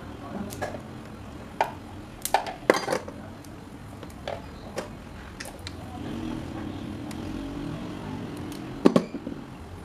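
Metal hand tools clinking and knocking on a workbench as pliers are picked up and handled: scattered sharp clicks and clanks, the loudest a quick double knock near the end.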